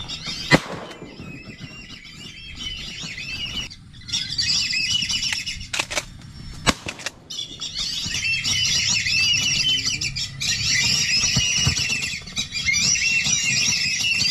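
A flock of whistling ducks (wisi wisi) calling, a dense chatter of high squealing whistles: a short stretch about four seconds in and a longer one from about eight seconds on. There is one sharp loud crack about half a second in, and a couple of knocks in between.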